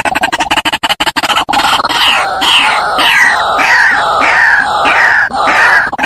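A bird calling over and over in a quick run of repeated notes, about two to three a second, after a second and a half of rapid clicking pulses.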